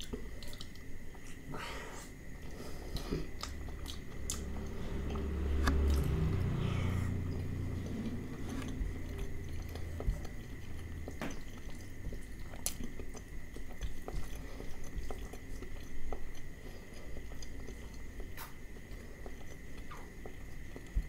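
Close-miked chewing and biting of mutton liver curry with rice, eaten by hand, with soft wet clicks and squishes as fingers mix rice on the plate. A faint steady high tone hums underneath.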